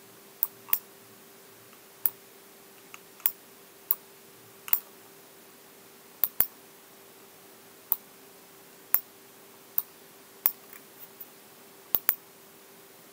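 Sharp, short clicks at irregular intervals, about one a second and sometimes two in quick succession, from someone working at a computer, over a faint steady hum.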